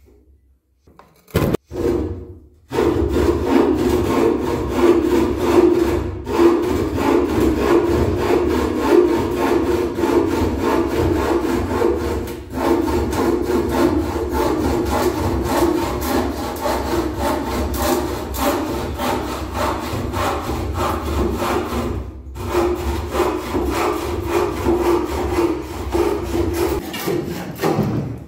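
Bow saw cutting through a wooden board with rapid back-and-forth strokes. A couple of short strokes come first, then steady sawing from about two and a half seconds in, broken by brief pauses three times.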